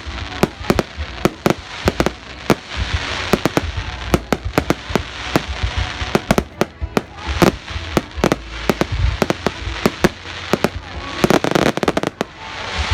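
Fireworks display bursting in quick, irregular succession: many sharp bangs a second, with crackle between them, thickest about eleven seconds in.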